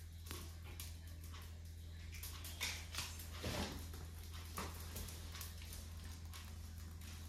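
Faint crackling and rustling of dry palm leaves and twigs as they are lit in a wood-burning kitchen hearth, with a few louder crackles about two and a half to four seconds in, over a low steady hum.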